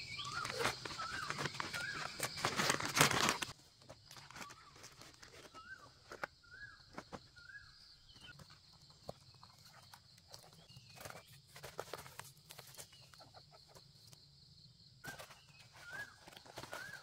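Plastic bag and cord rustling as they are handled for the first three and a half seconds. After that, a hen gives a run of short, soft clucking calls about every half second to second, over a steady insect drone.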